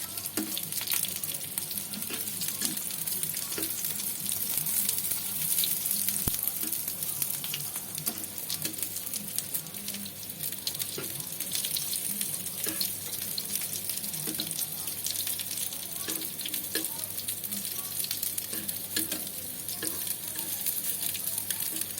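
Stuffed tofu frying in oil in a pan: a steady sizzle with frequent small crackles and pops.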